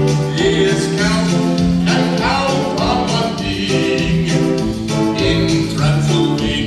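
Music with several voices singing together, choir-like, over sustained low notes.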